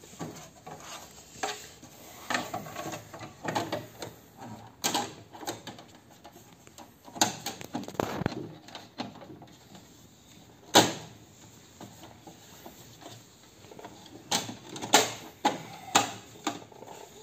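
Plastic side cover of a Ricoh MP 5002 copier being handled and fitted back into place: scattered clicks and knocks, the sharpest about eleven seconds in, with a cluster of smaller ones near the end.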